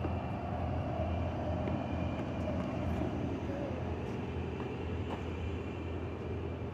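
Diesel locomotive of a passenger train running as the train rolls slowly into the station: a steady low engine rumble with a wash of rolling noise.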